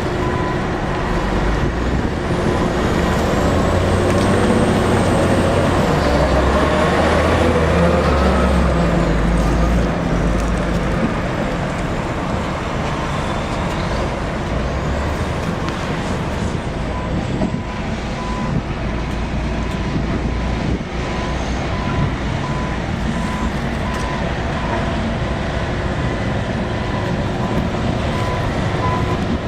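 Heavy diesel construction machinery running, louder for the first ten seconds or so. From a little past halfway there is an evenly repeating beep.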